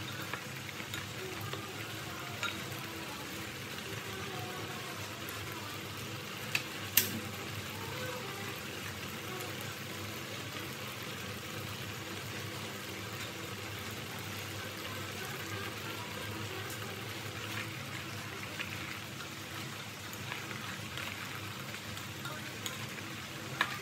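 Breadfruit pieces simmering in syrup in a pot, a steady bubbling hiss, with a wooden spatula stirring and a few sharp knocks against the pot, the loudest two in quick succession about seven seconds in.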